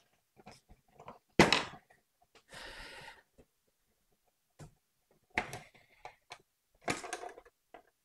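Kitchen handling sounds around a plastic salad spinner: a few sharp knocks and thuds, the loudest about one and a half seconds in, and a brief soft rush of noise a second later.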